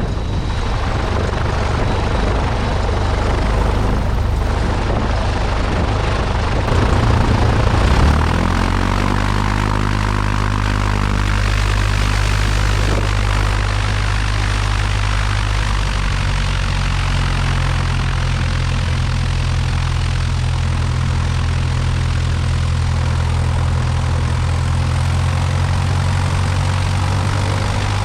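Cessna 172's piston engine and propeller running under a steady rush of noise; about eight seconds in the engine note rises, then holds steady.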